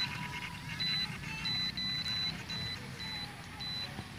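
The XK-A600 RC plane's transmitter beeping as its trim button is pressed while the trim is being adjusted. About six short, high beeps come at uneven intervals, one of them longer than the rest.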